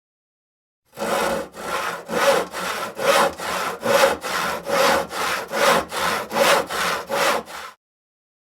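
Handsaw cutting through wood in quick back-and-forth strokes, about three a second. It starts about a second in and stops shortly before the end.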